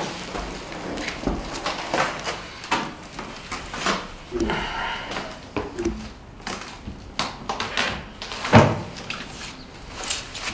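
Cardboard packaging and plastic wrap rustling and knocking as a heavy espresso machine, about 35 to 40 kilos, is lifted out of its crate and carried to a desk. There is a loud heavy thump about eight and a half seconds in, and two short voice sounds come a little before the middle.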